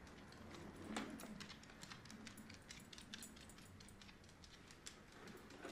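Faint, irregular clicking of dog claws on a hardwood floor as small dogs walk about.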